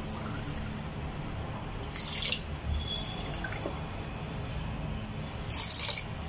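Water poured from a steel tumbler into a pressure cooker full of rice and chicken masala, splashing in two short pours, about two seconds in and again near the end.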